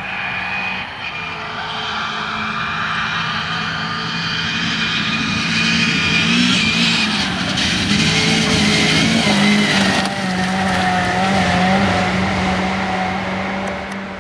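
Suzuki Swift rally car's engine working hard on a gravel stage, growing louder as it approaches, with the revs rising and falling through throttle changes and gear shifts. The sound cuts off suddenly near the end.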